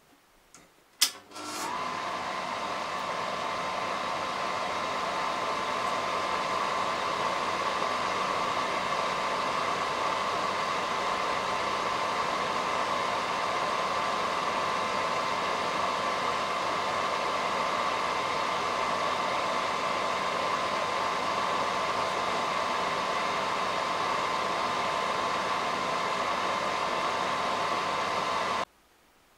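Rank Aldis Tutor 2 effects projector switched on with a click about a second in, its cooling fan motor then running with a steady whir and a steady high hum. It cuts off abruptly near the end as the projector is switched off.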